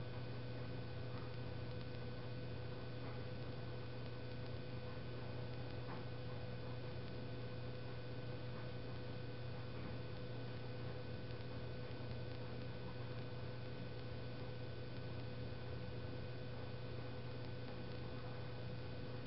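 Steady low electrical hum with a fainter steady higher tone above it, broken only by a few faint, light ticks.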